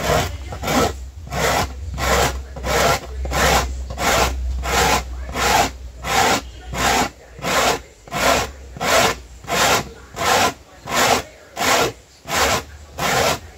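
Dry corn being grated by hand on a home-made grater of punched metal sheet on a wooden board, making rhythmic rasping strokes at nearly two a second as the corn is ground into coarse meal.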